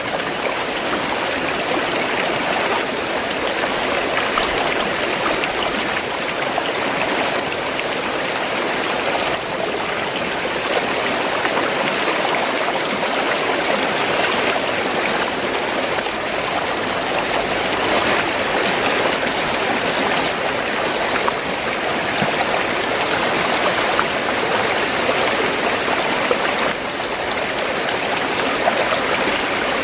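Fast-flowing water gurgling and rushing in a steady, unbroken stream.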